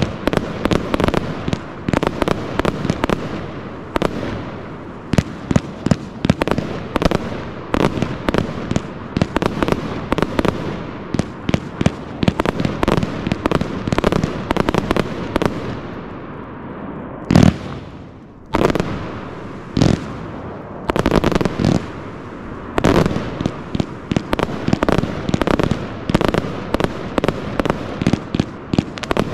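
Pyroworx Ku De Gras 262-shot, 25 mm compound cake firework firing a rapid barrage of sharp shots, several a second, with a brief lull about eighteen seconds in.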